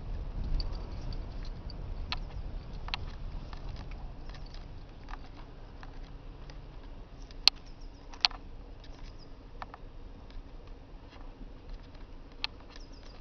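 Scattered faint clicks and taps at irregular intervals, two sharper ones about halfway through, over a low rumble that fades in the first couple of seconds.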